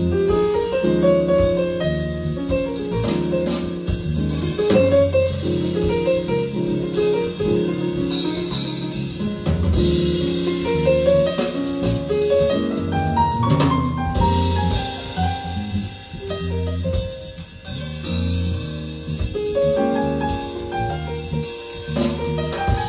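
Music played back through a pair of Saba FL 835 F loudspeakers driven by a Philips 384 amplifier, with a strong bass line under a run of melody notes.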